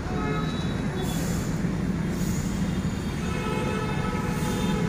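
Steady low rumble of wind buffeting a phone microphone and road noise from a moving bike, with faint higher tones coming and going near the start and again near the end.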